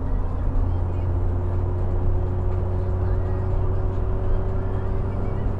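Car driving at motorway speed, heard from inside the cabin: a steady low road and tyre rumble under a hum that rises slightly in pitch as it goes.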